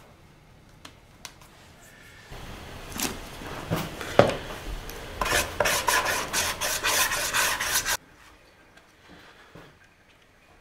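A brush scrubbing glue across a wooden panel: a rough scraping that starts abruptly about two seconds in, with a sharp knock partway, then quick back-and-forth strokes about three or four a second until it stops abruptly. Faint handling clicks before and after.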